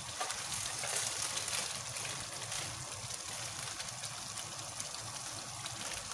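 Onion, tomato and ginger-garlic masala paste frying in oil in a pan: a steady sizzling hiss with small scattered crackles.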